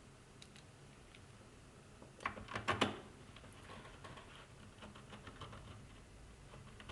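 Small clicks and light rattling of a screwdriver bit being swapped in a hand screwdriver, with a cluster of sharper clicks about two to three seconds in.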